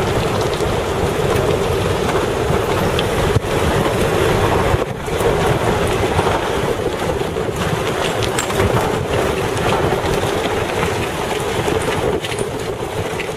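Wind buffeting the microphone over the steady drone of an off-road vehicle's engine, with one short knock about three seconds in.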